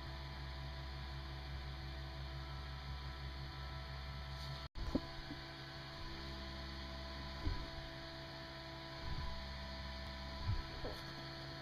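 Steady electrical hum with a few faint knocks and handling sounds, and a brief dropout about halfway through.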